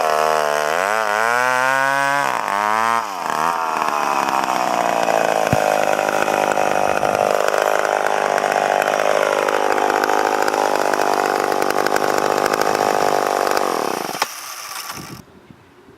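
McCulloch Pro Mac 10-10 two-stroke chainsaw running at high revs. The engine speed dips and comes back up twice in the first few seconds, then holds high and steady. Near the end the revs fall and the engine cuts off.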